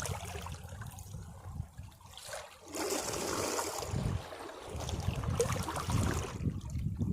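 Caribbean sea waves washing against rocks, with a surge of hissing water about three seconds in and another rumbling surge near the end.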